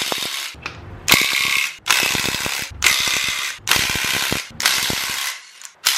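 Cordless impact wrench hammering in a series of short bursts, about one a second, as it spins off the nuts on the main bearing cap studs of a 5.3 LS V8 block.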